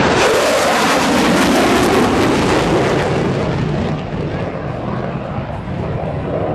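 Fighter jet making a fast pass overhead: a loud rush of jet engine noise whose pitch falls as it goes by. It is strongest over the first three seconds and fades after about four as the jet pulls away.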